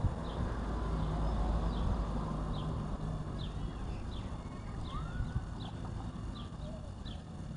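A bird repeating a short, high, downward chirp about every half second, with fainter calls from other birds, over a steady low rumble that eases after the first few seconds. A brief tap about five seconds in.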